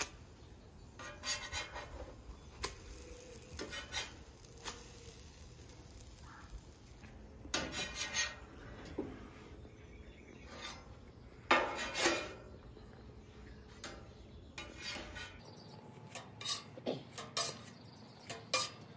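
Stainless steel spatula scraping and tapping on the steel top of a Camp Chef flat-top griddle and clinking on a wire rack as pancakes are lifted off and stacked. The scrapes and taps are scattered, with a few louder clusters.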